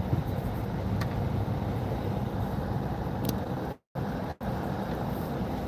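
Steady low rumble of a car being driven, heard from inside the cabin: engine and road noise. The sound drops out completely for a moment twice, about four seconds in.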